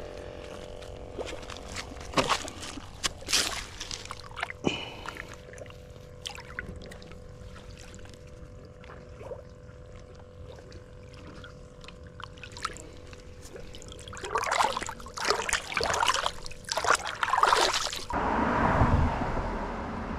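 Water trickling and splashing with scattered knocks and clatter, busiest in a run of noises a few seconds before the end.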